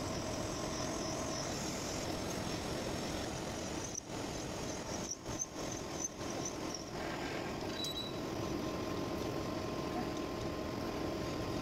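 Lathe running as a large twist drill in the tailstock bores into a spinning cast iron blank: a steady machine hum with a high thin whine from the cutting that dies away about seven seconds in.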